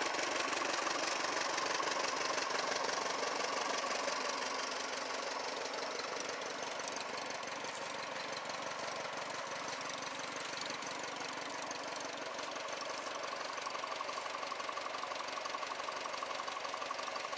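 1943 Ford 9N tractor's four-cylinder flathead engine idling steadily, dropping a little in loudness after about five seconds.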